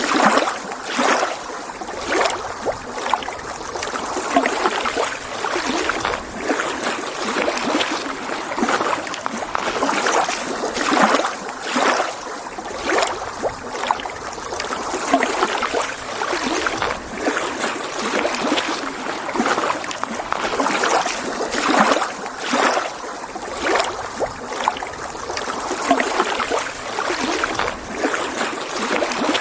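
Small lake waves lapping against the shore: a steady wash of water with frequent little splashes, one every second or two.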